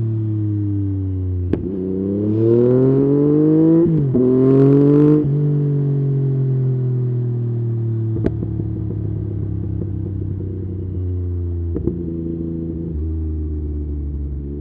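Yamaha MT-09 inline-three motorcycle engine revving. Its pitch climbs twice in quick succession, then slowly falls back and settles into a steady, slightly uneven low running note. There are a few sharp clicks along the way.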